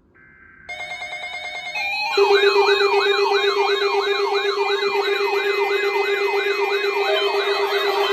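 Electronic emergency-alert alarm tones building up in layers. A faint steady tone comes first, then a pulsing multi-tone buzz under a second in, then from about two seconds in a loud siren-like yelp that sweeps up about three times a second over a steady low tone.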